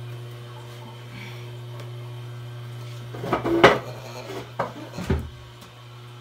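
Corded electric hair clippers running with a steady low hum. Loud clattering knocks come a little after three seconds in and again around five seconds, as a bowl is fitted on the head as a cutting guide.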